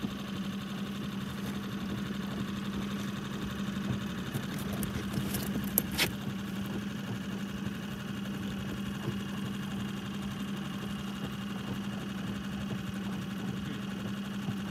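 Outboard motor of an inflatable boat running steadily at low trolling speed, a constant low hum. A sharp click about six seconds in.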